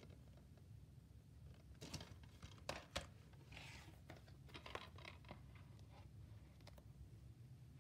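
Near silence with faint handling of plastic DVD cases: a few light clicks and taps about two to three seconds in, and soft rustling around them.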